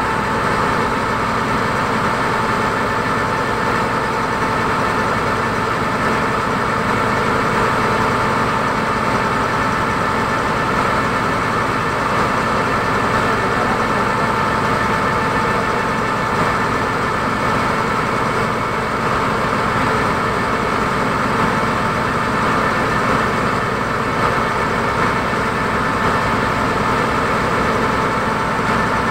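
A river ferry launch's engine running steadily underway: a continuous drone with a low throb and a steady high whine over it.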